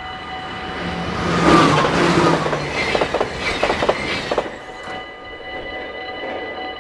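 A train passing over a Dutch level crossing: a rushing sound swells about a second in and is loudest for about three seconds, with wheels clacking over the rail joints near the middle, then dies away. The crossing's electronic warning bell rings steadily throughout.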